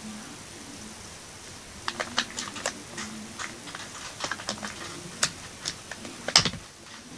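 Littlest Pet Shop plastic toy figures handled in the hands, giving a run of light irregular clicks and taps that start about two seconds in, the sharpest one near the end.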